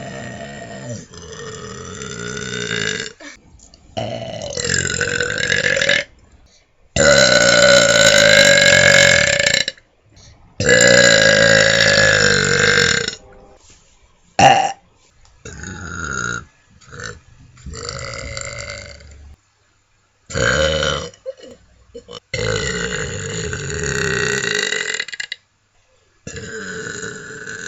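A person belching over and over: about a dozen long, drawn-out burps, each lasting from under a second to about three seconds, with short pauses between them. The loudest burps come about a third of the way in.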